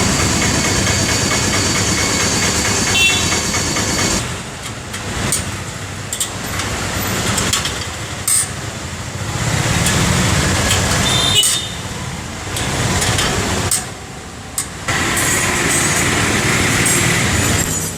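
Steady motor vehicle and engine noise with a few sharp knocks, its level changing abruptly several times.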